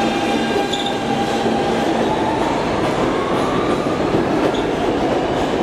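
New York City subway train running on the rails, a steady loud rush with a whine that rises in pitch from about a second and a half in, typical of the traction motors as the train picks up speed.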